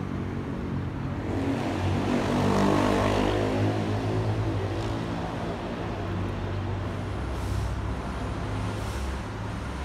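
Airbus A321neo's CFM LEAP-1A turbofan engines passing overhead: a broad jet rumble that swells to its loudest about three seconds in, then slowly fades, with a comb of tones sliding gently downward as the aircraft moves away.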